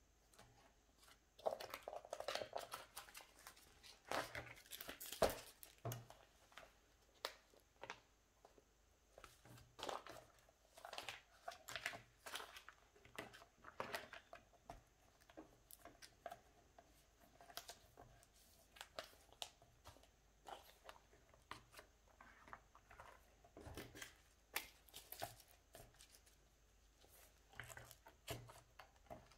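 Plastic photocard sleeves and binder pockets crinkling as cards are slid out and tucked in, with light taps and clicks, in quiet irregular bursts, busiest in the first few seconds.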